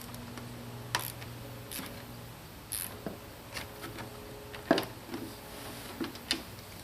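Scattered clicks and light knocks of hand tools and parts being handled during car steering-column reassembly, over a low steady hum. The loudest knock comes a little under five seconds in.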